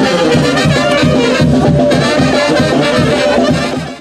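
Brass band music with trombone and trumpet parts, playing steadily, then dropping out sharply at the very end.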